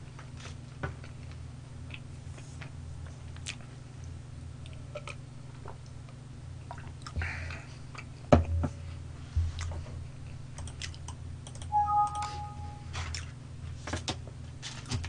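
Quiet eating sounds: chewing, with scattered light clicks and taps of a fork on a plastic takeout container. There is a louder knock about eight seconds in, and a brief two-note electronic tone near twelve seconds.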